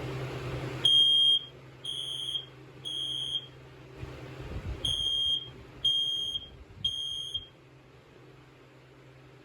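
Smoke alarm sounding its test: a high, piercing beep in the temporal-three evacuation pattern, three half-second beeps, a pause, then three more.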